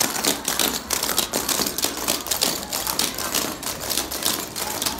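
Rapid, continuous clatter of a group of step dancers' hard-soled shoes striking a parquet dance floor.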